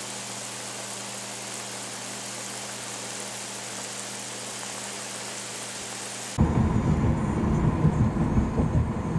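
A steady hiss for about six seconds, then a sudden cut to a louder, uneven low rumble of a car on the move, heard from inside the cabin.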